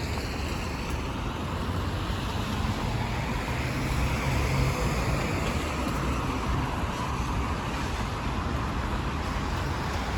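Steady road traffic on a rain-wet street: cars and other vehicles passing, swelling slightly about four seconds in.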